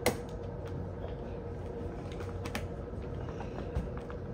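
Wire door of a plastic pet carrier clicking and rattling as it is handled. There is a sharp click at the start, then a few lighter clicks about two and a half seconds in and near the end, over a faint steady hum.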